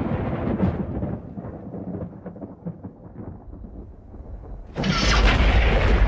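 Thunder rumbling and fading away, then a sudden sharp thunderclap near the end, followed by a heavy, deep rumble.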